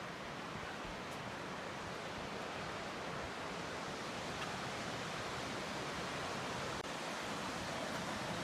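Waterfall rushing: the steady, even roar of water falling down a cascade on a mountain stream, with a very brief dropout about seven seconds in.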